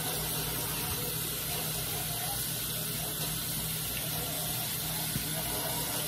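Kitchen tap running steadily into the sink while raw chicken is rinsed and cleaned, with a low steady hum underneath.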